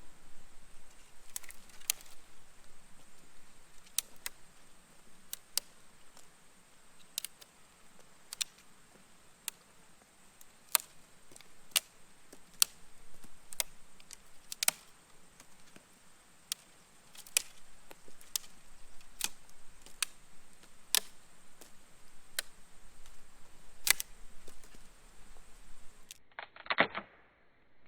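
Campfire crackling: sharp, irregular pops about every second or so, over a faint steady high hiss. Near the end, one louder and longer sound.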